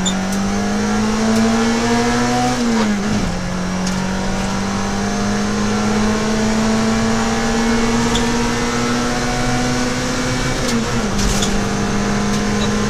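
Peugeot 106 XSi rally car's four-cylinder engine heard from inside the cabin, running hard at speed. Its note climbs slowly and drops with an upshift about three seconds in and again about eleven seconds in.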